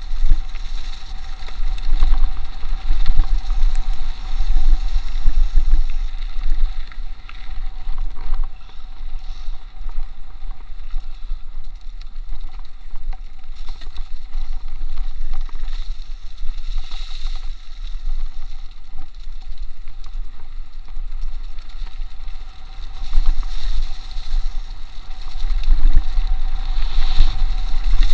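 Wind buffeting the microphone of a chest-mounted action camera on a mountain bike riding fast downhill on a dirt trail, under a heavy rumble from the tyres and occasional knocks from the bike over rough ground. The rush grows louder in the last few seconds.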